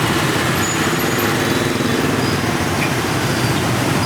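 Dense rush-hour street traffic, mostly motorbike and scooter engines running together in a steady, loud hum, as picked up by a camera's built-in microphone.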